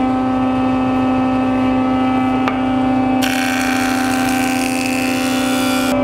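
Jointer (surface planer) running with a steady machine hum. A little past halfway a board is fed over the spinning cutterhead and the loud hiss of the cut joins the hum; a single sharp click comes just before.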